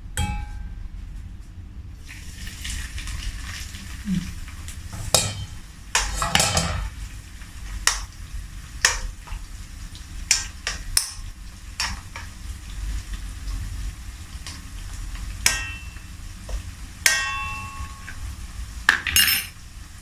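Ikan bilis (dried anchovies) frying in hot oil in a wok: a steady sizzle starts about two seconds in, broken by repeated clinks and knocks of kitchen utensils against the cookware, a few of them ringing.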